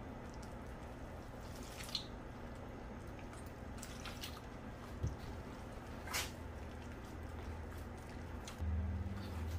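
Soft wet squishing and dripping of a hand mixing wheat flour with warm water poured from a jug into a glass bowl, with a few faint scattered ticks. A low hum comes up near the end.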